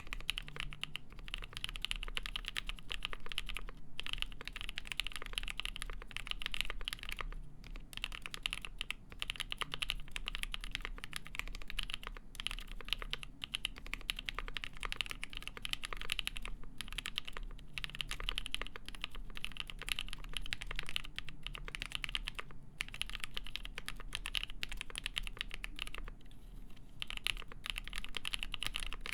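Steady fast typing on a Polaris mechanical keyboard with a full polycarbonate plate, GMK Shoko keycaps and NovelKeys Cream linear switches lubed with Krytox 205g0, with brief pauses every few seconds.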